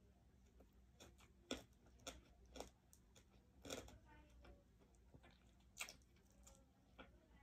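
Quiet mouth sounds of eating with the hands: soft chewing with about six short, sharp lip-smacks and clicks, spaced unevenly, over a low room hum.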